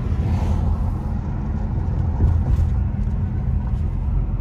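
Car driving slowly with its windows down: a steady low rumble of engine, tyre and wind noise heard from the cabin.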